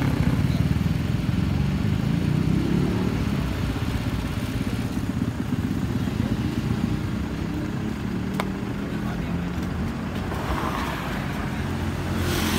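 Steady low engine rumble of nearby street traffic, with faint voices in the background.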